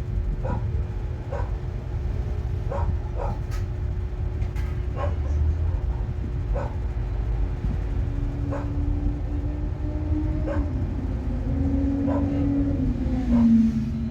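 A dog barking in short single barks, about one every second or so, over a steady low hum. Near the end a droning tone grows louder and slides down in pitch.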